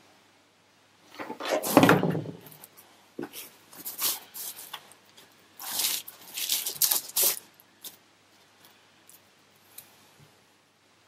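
Workbench handling noises: a heavy knock-and-rustle about two seconds in, then several short rustling, scraping sounds over the next few seconds, then it goes quiet.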